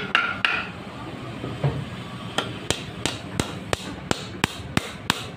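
Hammer blows: a couple of single knocks, then from about two seconds in a steady run of sharp strikes, about three a second.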